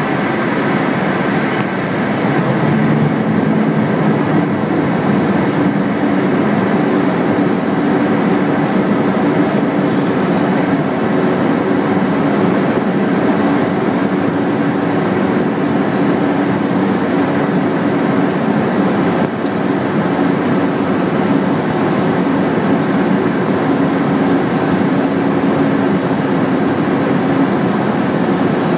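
Steady engine and airflow noise inside an aircraft cockpit during the descent: a constant drone with a few low held tones in it.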